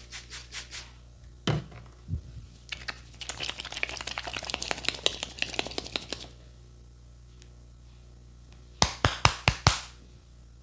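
A barber's hands doing percussive massage strokes: two single knocks, then a few seconds of fast, dense tapping, then about six sharp, loud slaps in quick succession near the end.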